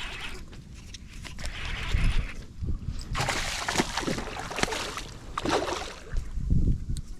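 Water sloshing and splashing around a small aluminium john boat, louder about three seconds in and again a little later, while wind gusts buffet the microphone.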